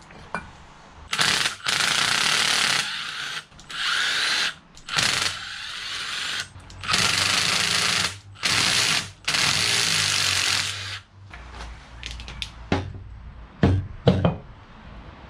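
Cordless impact driver spinning out the bolts on a Yamaha Wave Blaster jet ski engine, run in about six bursts of one to three seconds each. Near the end come a few sharp metal clunks as the loosened parts are handled.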